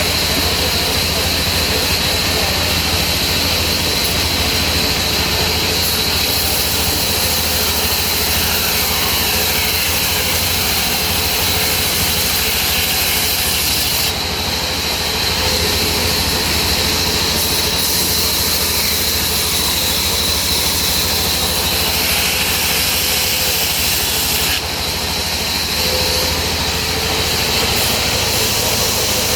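Sawmill saw running steadily under power, a loud machine hum with a constant high whine and hiss as it cuts mahogany; the hiss drops briefly about fourteen seconds in and again about twenty-five seconds in.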